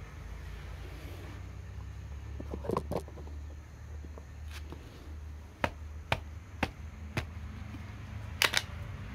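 Sharp metallic clicks and knocks from handling an NX100 air rifle fitted with a .22 barrel at its breech block: a short cluster about three seconds in, then single clicks every half second or so, and a louder double click near the end. A steady low hum runs underneath.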